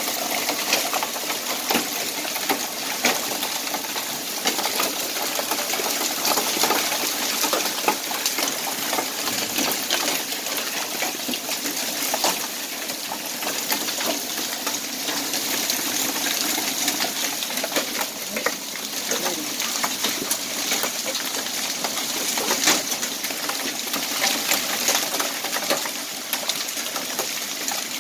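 Small hailstones pelting a concrete driveway, a dense, steady patter of countless tiny impacts over a rain-like hiss.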